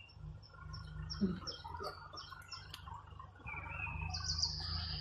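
A songbird singing: a run of short, falling high notes, then a high, sustained trilling phrase near the end, over a faint low rumble.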